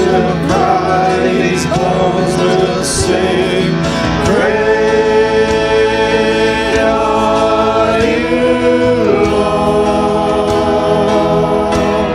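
A worship song sung with instrumental accompaniment, the voice holding two long notes in the second half.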